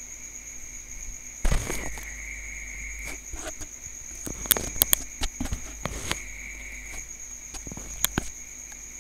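Computer mouse clicks, a scattered run of sharp ticks with several close together in the middle, as the Shrink button is clicked over and over. A louder thump comes about a second and a half in, and a steady high-pitched whine and hiss runs underneath.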